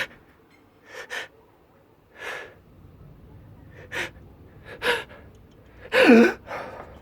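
A person's short, sharp gasping breaths and sniffs, half a dozen in a row during an allergy sneezing fit, the loudest near the end turning into a voiced "oh".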